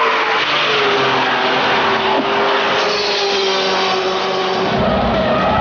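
RUF CTR 'Yellowbird' sports car running hard at high speed, its engine note easing slightly down, over heavy wind and road noise. A deeper rumble comes in near the end.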